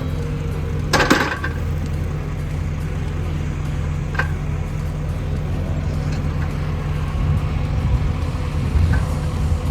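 Kubota skid steer's diesel engine running steadily, with a loud metallic clank about a second in and a lighter knock around four seconds in.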